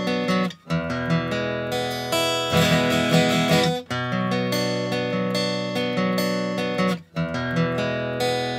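Background music led by acoustic guitar, with a short break about every three seconds.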